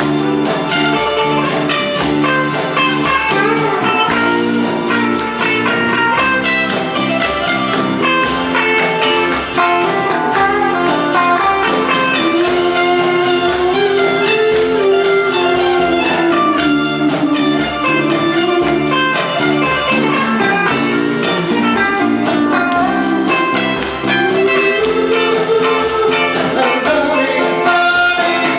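Live band playing an instrumental stretch with guitar to the fore. A melody line bends up and down over the accompaniment.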